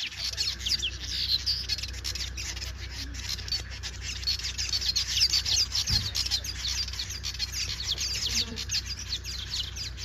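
A breeding colony of weaver birds chattering at their nests: many short, falling chirps overlapping continuously from many birds at once.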